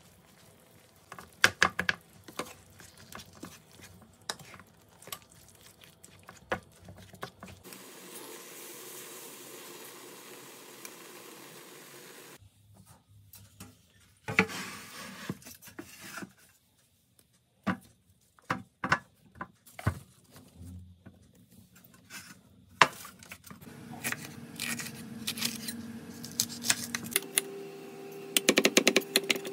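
Kitchen prep sounds: scattered clicks and knocks of a knife and utensils on a wooden cutting board and pan, with a stretch of steady hiss about eight seconds in. Near the end comes quick knife chopping on the wooden board.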